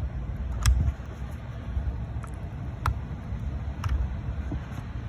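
A flat screwdriver clicks against the steel wire retaining ring and plastic housing as the ring is worked into its slot to hold a new bushing on a Stihl trimmer shaft. There are a few sharp clicks, the loudest about a second in, over a low rumble.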